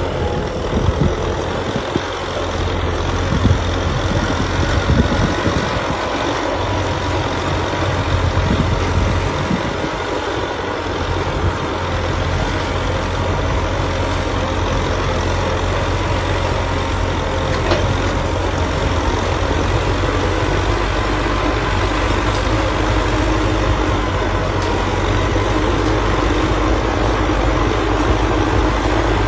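Kubota M6040 tractor's four-cylinder diesel engine running steadily under load while pulling a tillage implement through dry soil, with a few louder thumps in the first five seconds.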